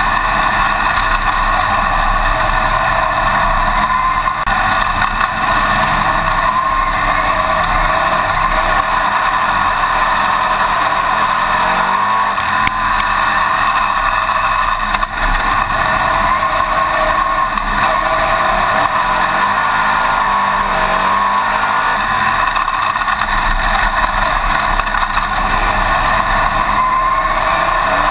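Racing engine of a winged dirt-track modified running hard, heard loud from inside the cockpit. Its pitch dips and climbs again a few times as the car lifts off the throttle for the turns and drives back out of them.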